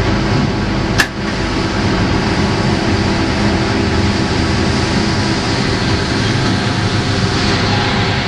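Sawmill log carriage and its machinery running: a loud, steady mechanical hum with several steady tones, and one sharp knock about a second in.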